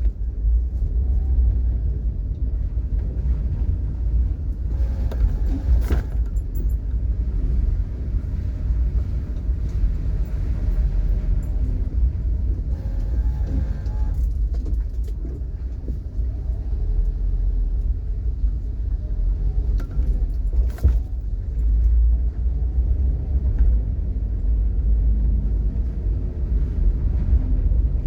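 Steady low rumble of a car on the move, with a few brief knocks.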